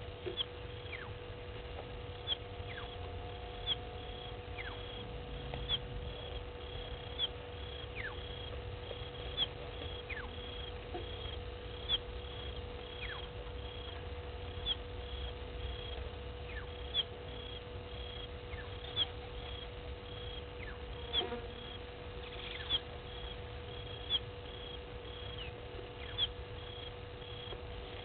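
Wild animal calls in the bush: a short high chirp repeating about one and a half times a second, and a louder call falling sharply in pitch every couple of seconds. Under them runs a steady hum with a low rumble.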